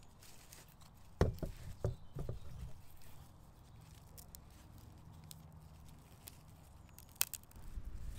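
Hazel rungs and withies being handled and shifted on leaf litter: a cluster of wooden knocks and rustles about a second in, then a single sharp click near the end.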